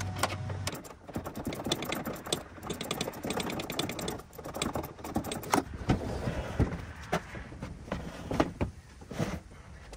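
Socket ratchet clicking in quick runs, with metal clinks and knocks, as bolts are undone on a truck-bed drawer system.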